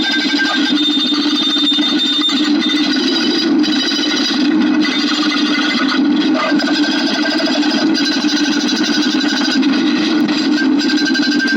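A steady, dense run of rapid clicking with a buzzing, distorted edge, and a few sharper clicks standing out now and then.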